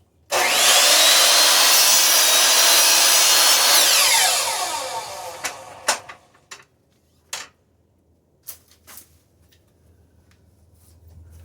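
A 10-inch compound miter saw starting with a rising whine and running steadily as it cuts a small piece of firewood, then released and winding down with a falling whine about four seconds in. Several sharp knocks follow.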